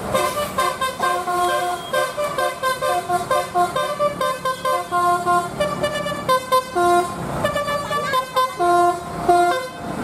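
Bus telolet horn, a set of air horns, playing a quick tune of short toots that jump between pitches, several tones sounding together, with brief breaks between phrases.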